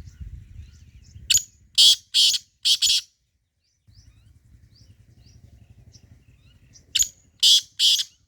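Francolin (teetar) calling: a loud phrase of about four quick, harsh notes, repeated a few seconds later.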